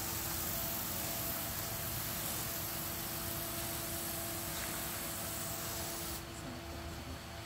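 Hose-fed spray wand hissing steadily as liquid is sprayed over potted plants, cutting off about six seconds in. A steady low hum runs underneath.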